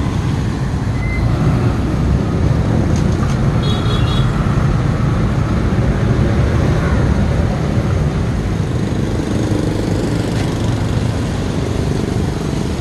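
Steady roadside street traffic noise, a low rumble of passing vehicles, with a brief high-pitched tone about four seconds in.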